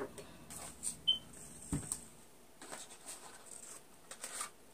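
Faint scattered clicks and light taps of small items being handled, with one low thump just under two seconds in.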